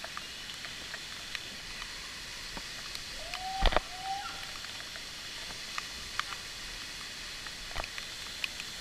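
Scattered clicks and knocks of boots and rope-descent gear against rock during a rappel, with one loud knock about three and a half seconds in, over a steady hiss.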